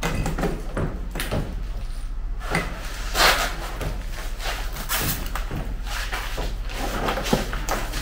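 Chunks of broken concrete rubble knocking and scraping against each other as they are dropped into a plastic bucket: a run of irregular knocks, with a louder clatter about three seconds in.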